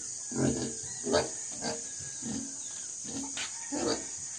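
A young white pig grunting in a concrete pen: a series of short grunts, about one every half second.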